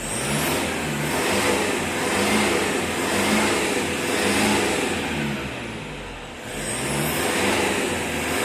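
Toyota Hilux 3.0 turbodiesel engine revved up and down several times, with a high rising whistle twice. The engine has a freshly reconditioned turbocharger and now runs without its earlier turbo noise.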